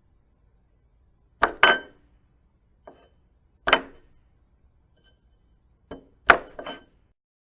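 Plates clinking, with a short ring after each knock: a double clink about a second and a half in, a faint tap, another clink near the middle, and a quick cluster of clinks near the end.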